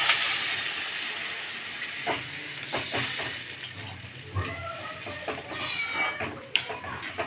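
Water poured into a hot metal pan of frying potato and bitter gourd, hissing and sizzling loudly at first and dying down over the first couple of seconds. Then a slotted metal spatula clicks and scrapes against the pan as the curry is stirred.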